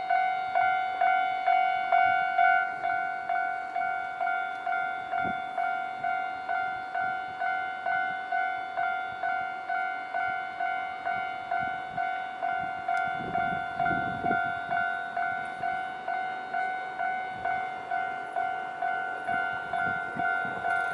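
Japanese railway level-crossing warning bell ringing steadily, about two strokes a second, signalling that a train is approaching. A brief low rumble joins it about two-thirds of the way through.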